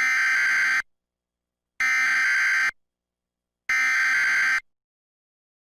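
Emergency Alert System SAME header: three identical bursts of digital data tones, each just under a second long with about a second of silence between them, the coded start of an emergency alert broadcast.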